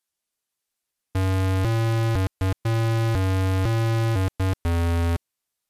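Short 8-bit-style synthesizer tune: a run of held notes stepping up and down in pitch, with a few brief breaks, starting about a second in and stopping shortly before the end.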